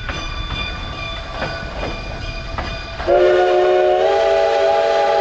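Steam locomotive whistle of a Cumbres & Toltec train, blowing a loud, held chord about three seconds in that steps slightly up in pitch a second later. Before it, the train's wheels click on the rails under a thin, high ringing.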